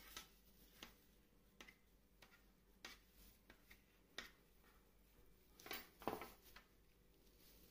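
Faint, scattered taps and clicks of a knife and gloved hands handling dough on a tabletop, with sharper taps about four and six seconds in.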